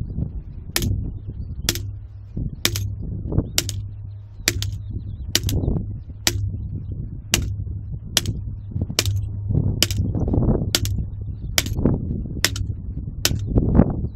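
An ASP telescopic steel baton striking two cheap Chinese telescopic batons laid across a concrete block: about fifteen sharp metal-on-metal blows, a little under a second apart. The cheap batons bend under the blows.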